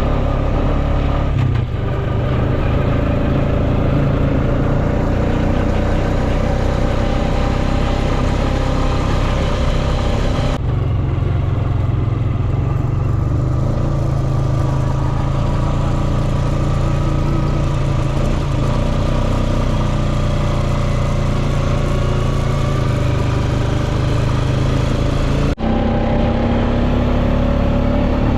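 Quad bike (ATV) engine running steadily under way, loud and close, with a low rumble. The sound changes abruptly twice, about ten seconds in and near the end.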